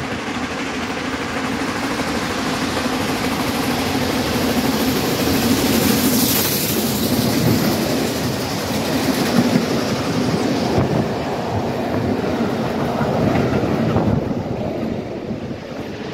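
Steam-hauled passenger train approaching and passing close by, growing louder over the first few seconds. Then the coaches' wheels clatter over the rail joints, and the sound thins as the train draws away near the end.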